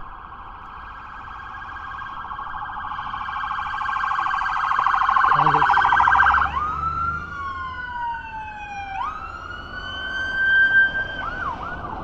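U.S. Capitol Police escort vehicles' sirens on a motorcade: a rapid warbling yelp that grows louder, then about six and a half seconds in switches to slow rising and falling wails from at least two sirens overlapping, ending with a few short chirps.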